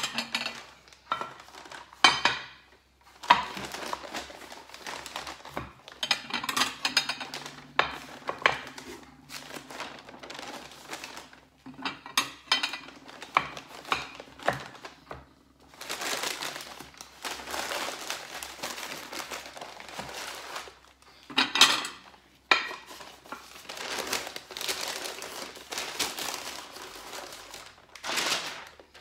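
Sheets of packing paper rustling and crinkling as plates are wrapped one after another, with a few sharp clinks and knocks of the plates.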